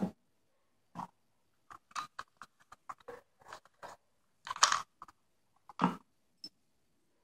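Handling noise from a flashlight kit's hard plastic and metal parts, the black flashlight and a plastic battery charger: a series of irregular clicks, knocks and rattles as the pieces are picked up, turned over and set down. The loudest knocks come about four and a half seconds in and again near six seconds.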